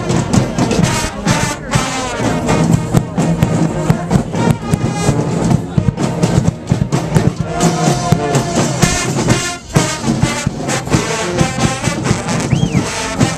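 College marching band's brass section, trombones and trumpets at the fore, playing a loud tune at close range, with drum hits through it.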